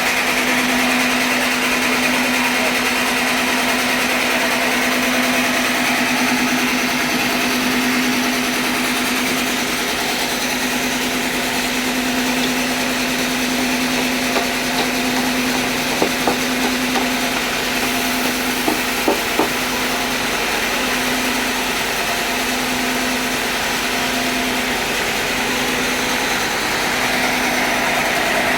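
Sawmill running steadily while sawing a mahogany log: a constant motor hum under the blade's noise, with a few short knocks about halfway through.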